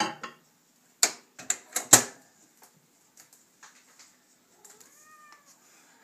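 A bowl set down inside a microwave oven and the door swung shut, a few sharp clatters and clicks with the loudest knock about two seconds in. About five seconds in comes one short pitched sound that rises and then falls.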